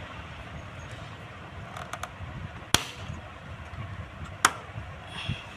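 Two sharp clicks, about a second and a half apart, over a steady background hiss.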